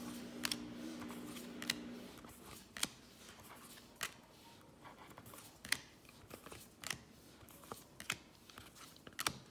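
Trading cards being flipped through one at a time, each card giving a short, soft click, about one a second.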